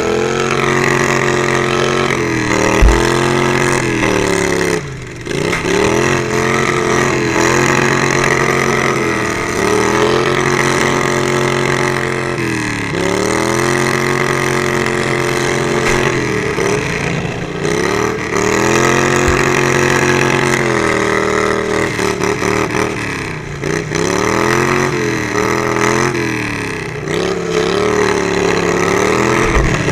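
Riding lawnmower engine racing, heard from on board: its pitch falls and climbs back again and again as the throttle eases off and opens up. A few short low thumps break in, the loudest about three seconds in.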